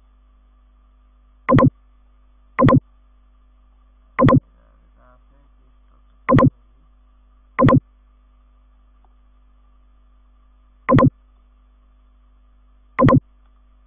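Seven short, loud pitched beeps at irregular intervals of one to three seconds, over a faint steady hum.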